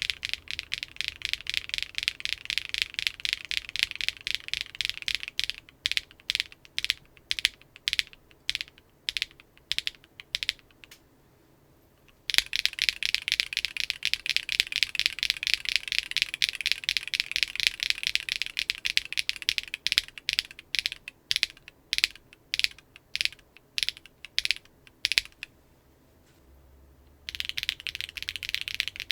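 Mechanical keyboard with clacky linear switches being typed on. There are two passes, each a run of fast typing followed by slower single keystrokes, with a short pause after each pass. The clack is high-pitched.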